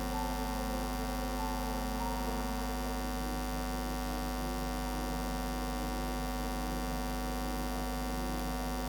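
Steady electrical mains hum: a low, unchanging drone with many steady overtones, carried on the sound system's audio feed.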